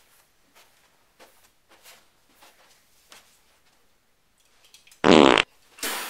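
A loud fart, one short buzzing burst of under half a second, about five seconds in, after several seconds of only faint taps.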